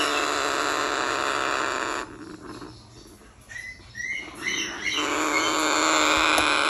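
Baby African grey parrot chicks calling: harsh, hissing cries in two long stretches, with a quieter spell of short rising chirps in between.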